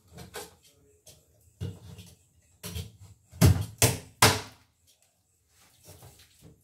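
A cardboard shipping box being opened and handled: a run of knocks and scrapes of cardboard, the loudest three in quick succession a little past the middle.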